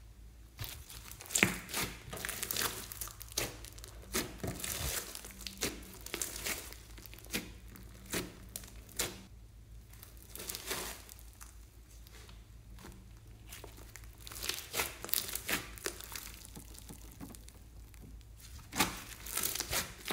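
Hands kneading and squeezing floam (slime packed with small foam beads): irregular crackles and pops coming in clusters as the beads and sticky slime are pressed and pulled apart.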